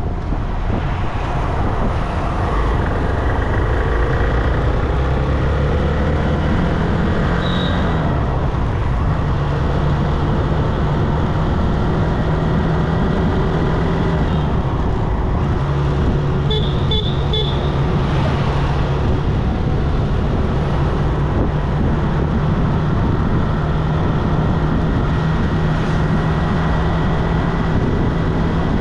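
Motorcycle riding along a busy road: the engine running steadily with road and traffic noise around it. Short high-pitched horn toots sound once about seven seconds in and three in quick succession around seventeen seconds.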